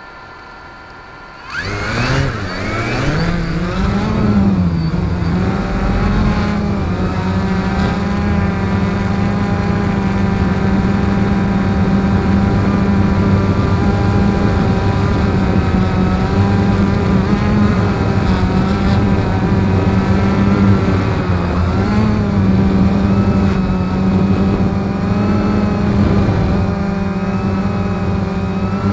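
XK X380 quadcopter's motors and propellers spinning up suddenly about a second and a half in, rising in pitch at takeoff, then a loud steady buzzing whine as it climbs, with slight pitch wobbles. The sound is picked up on the drone itself, close to the props.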